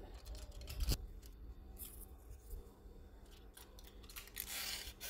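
Aluminium foil crinkling and rustling as a wooden ice-cream stick is pushed through a foil lid over a paper cup. There is a sharp click about a second in and a longer rustle near the end.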